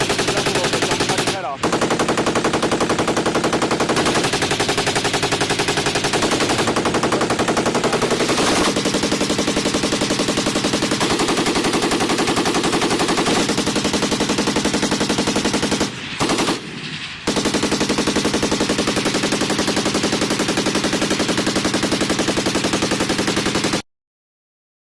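Belt-fed M240B 7.62 mm medium machine gun fire in long, sustained fully automatic bursts. There are short pauses about a second and a half in and again about sixteen seconds in, and the fire stops abruptly near the end.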